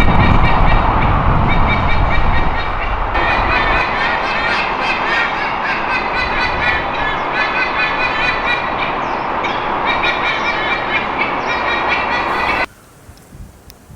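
White-bellied sea eagle pair honking loudly in fast repeated series, a territorial warning at an intruding young eagle. The calls sit over a steady low rumble that is loudest in the first two or three seconds, and everything cuts off suddenly near the end.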